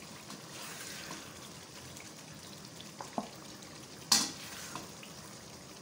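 Mutton biryani masala sizzling faintly in a nonstick wok as a silicone spatula stirs and scoops it, with a few light knocks and one sharp clack about four seconds in.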